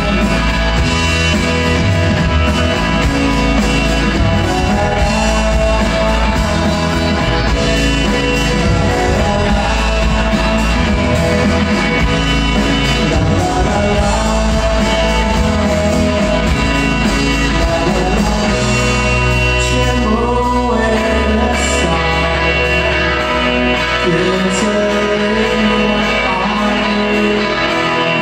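Rock band playing live on electric guitars, bass and drums, with a male voice singing over them.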